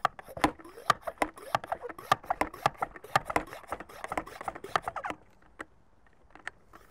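Plastic hand pump of a one-gallon Ortho pump sprayer being worked quickly up and down, a rapid, uneven run of clicking strokes that stops about five seconds in. The pumping pressurizes the antifreeze-filled tank so it can push antifreeze, then air, through a jet ski engine.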